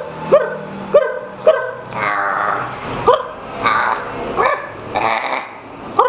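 A string of short, sharp dog-like barks and yips, roughly one every half second. Between them come a couple of longer, drawn-out whining calls.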